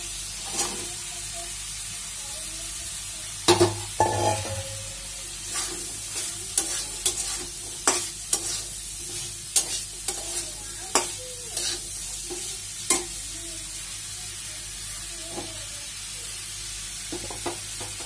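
Cut vegetables (potato, brinjal, gourd) sizzling in hot oil and spice paste in a metal karahi, with a spatula scraping and knocking against the pan as they are stirred. A loud clatter about three and a half seconds in, as the vegetables go into the pan, and the stirring knocks thin out in the last few seconds.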